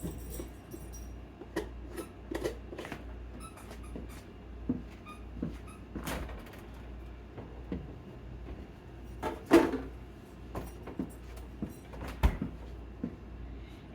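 Kitchen cupboard door and jars being handled: scattered light knocks and clicks, with the loudest knock about nine and a half seconds in and a sharp thump near the end.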